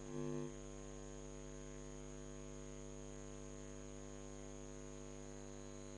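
Faint steady electrical hum, a stack of even tones over a light hiss, with nothing else; it is slightly louder for the first half second.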